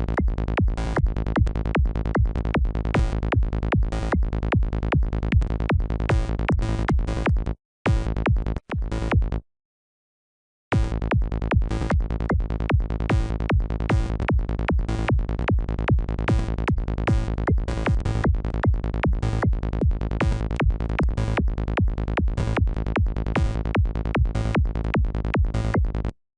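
NI Massive software synthesizer lead playing a fast pulsing run of short repeated notes at one pitch, about five a second, eighth notes at 150 BPM. The pattern stops about eight seconds in, sounds briefly twice more, goes quiet, then starts again about eleven seconds in and runs nearly to the end.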